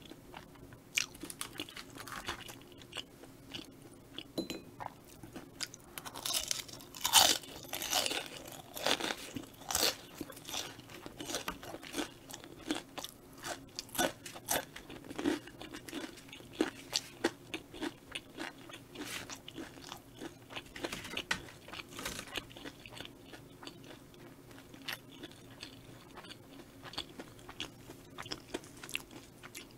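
Close-miked chewing of chewy rice cakes in rose cream sauce: a steady run of sharp, wet mouth clicks, busiest a few seconds in.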